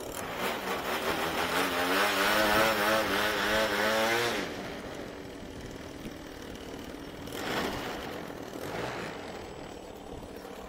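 VQ Model Bonanza RC airplane's electric motor and propeller running on the runway: a loud buzzing whine with a wavering pitch that cuts off abruptly about four seconds in. A shorter, softer burst of throttle comes a few seconds later.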